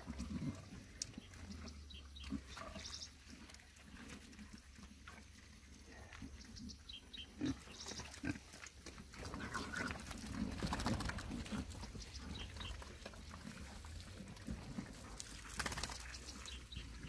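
A group of pigs grunting and squealing as they crowd a trough to feed on old milk, which they go nuts over. Near the end a hose splashes water into the pen.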